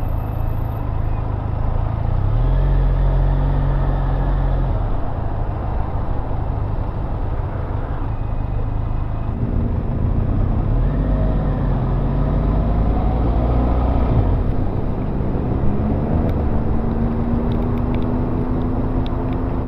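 Benelli TRK 502's parallel-twin engine running on the road, rising in pitch several times as it accelerates, with steady wind noise over it.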